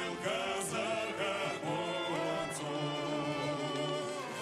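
Background music: a song with a singing voice holding long, sliding notes over accompaniment.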